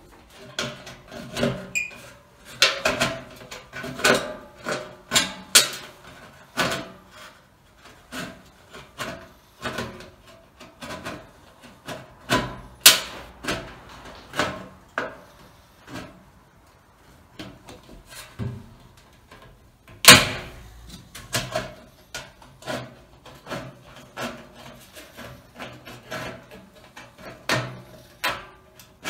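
Tin snips cutting around the end of a black steel stovepipe: an irregular run of sharp metallic snips and crunches, with a few louder clanks of the pipe, the loudest about thirteen and twenty seconds in.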